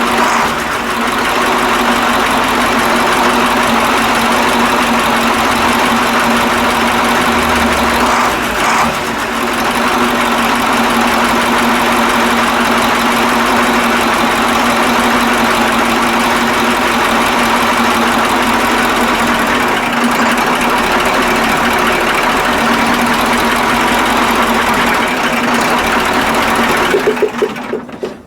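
KamAZ V8 diesel truck engine idling steadily, with no clear knock. A few last firing pulses, then it shuts down near the end.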